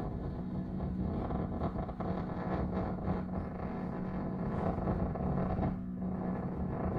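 Strings amplified through piezoelectric contact microphones and processed by live electronics, making a dense, grainy, crackling rumble over a steady low hum rather than ordinary bowed notes. The crackle thins out briefly about six seconds in while the hum carries on.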